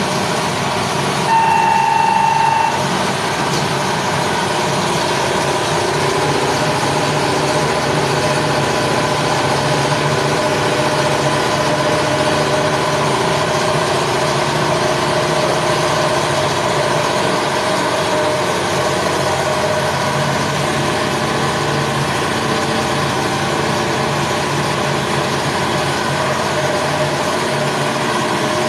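An engine running steadily, with a loud steady-pitched beep lasting about a second and a half, starting about a second in.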